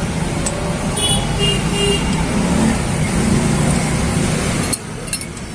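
Motor vehicle engine running steadily close by with road-traffic noise, a low rumble that drops away sharply near the end.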